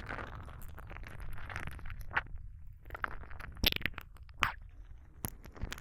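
Close-up kissing sounds: a handful of short, wet lip smacks about a second apart over soft breathing, next to the ear.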